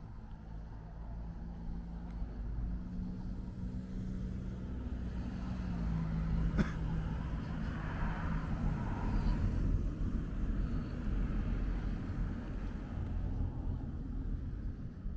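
Street traffic: a car's engine hum and tyre noise over a low rumble. It grows louder towards the middle and then fades, as a car passing on the road would.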